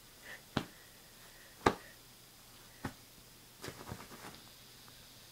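A few short, sharp clicks and taps in a quiet room: the loudest comes about a second and a half in, and a small flurry of them follows near four seconds.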